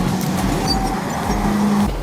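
Background music with a steady pulsing bass beat.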